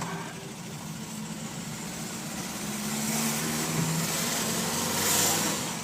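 Opel Kadett B's tuned 1.2 S OHV four-cylinder engine running while driving, heard from inside the cabin, getting louder from about three seconds in. It carries a strange noise that the owner fears is a bearing, seeming to come from underneath the car.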